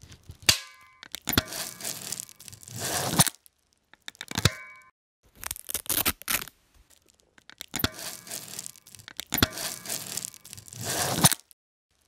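Sound effects for the SAM Junctional Tourniquet's AUTOSTOP buckle: a sharp plastic click about half a second in and another near four and a half seconds, each with a short ringing tone, and stretches of rasping strap noise in between as the webbing is pulled tight through the buckle. The clicks are the buckle's prongs engaging, the signal that the tourniquet has reached the right compressive force.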